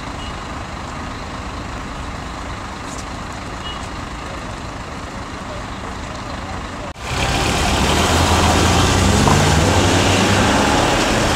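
Road traffic in a jam: a steady hum of traffic at first. About seven seconds in it jumps louder, and a heavy vehicle's engine runs with a low drone that rises slightly.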